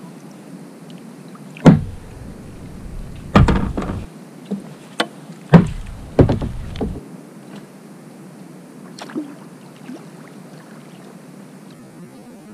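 A run of sharp knocks and thuds on the plastic hull of a fishing kayak as a just-caught fish and the rod and rig are handled aboard: about seven hits in the first seven seconds, the loudest near the start and in the middle, and one more near nine seconds, over a faint steady background.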